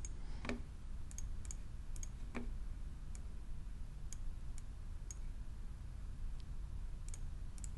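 Faint, irregular clicks and taps from operating a laptop while selecting points on a graph, two of them a little louder, over a low steady hum.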